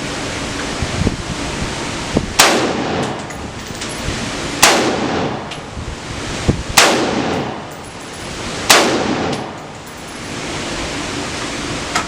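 Gunshots: four loud single shots about two seconds apart, each with a short ringing tail, with a few fainter shots in between.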